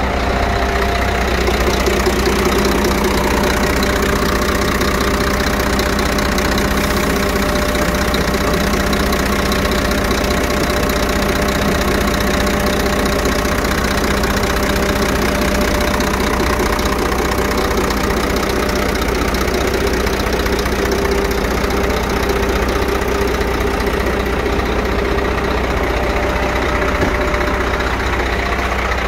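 Scania P114 380's 11-litre six-cylinder turbodiesel idling steadily, heard close to the open engine bay.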